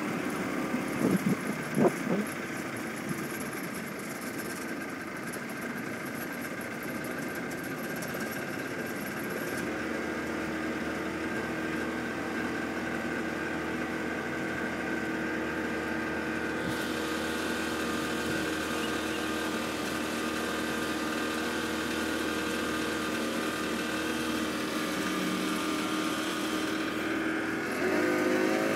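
A boat's motor running steadily as the boat moves along, its pitch shifting upward near the end. A few loud bumps in the first two seconds.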